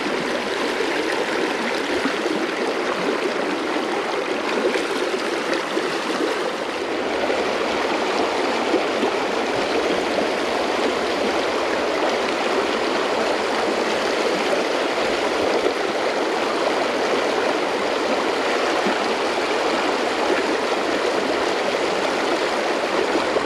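Small creek running fast over rocks in a shallow riffle close by: a steady rushing and splashing of water.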